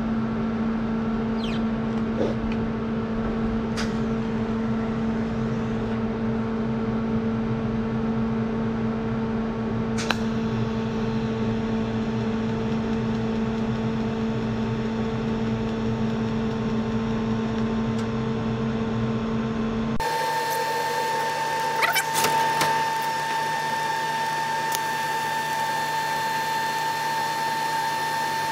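TIG welding set running while stainless steel is TIG welded: a steady electrical hum that switches abruptly to a higher, steady whine about twenty seconds in.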